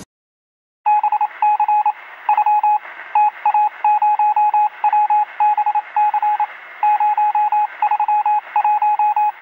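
Electronic beeping tone, keyed on and off in short and long beeps over a steady hiss, starting about a second in.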